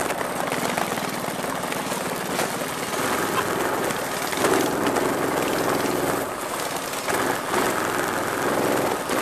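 Minibikes' small single-cylinder four-stroke Predator engines running under throttle on a dirt track, the engine pitch shifting as the riders speed up and slow.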